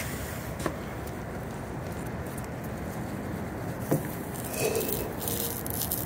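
Steel crucible tongs clicking lightly against a graphite crucible of molten aluminium, a couple of single clicks over a steady background hiss. Near the end comes a short hissing, scraping noise as the pour into the steel mold begins.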